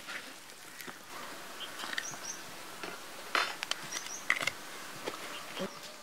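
A hand kneading masala-coated pork pieces in a stainless steel bowl: irregular wet squelches and small clicks against the metal, with a couple of louder brief rustling bursts a little past the middle as chopped coriander and green chillies are tipped in from a plastic scoop.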